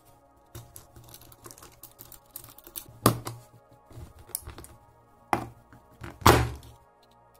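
Small screwdriver working the screws of a Samsung HD321KJ hard drive's metal cover: light metallic clicks and scrapes, with louder knocks about three seconds in and twice near the end as the drive is handled. Faint background music underneath.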